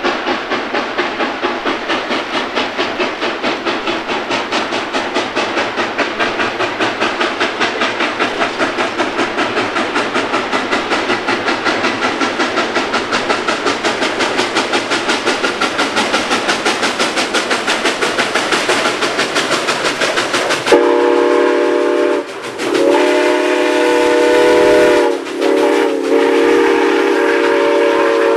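Southern Pacific 2472, a 4-6-2 Pacific steam locomotive, working with a rapid, even beat of exhaust chuffs. About 21 s in it blows its steam whistle, several tones sounding at once, in three blasts: a short one, then two long ones.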